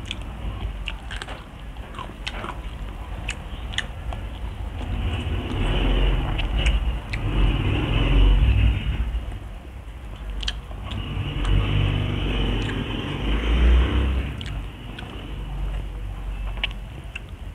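Close-miked chewing of a mouthful of fried tilapia and rice eaten by hand, with wet mouth clicks scattered throughout and two long stretches of louder, low chewing noise a few seconds in and again past the middle.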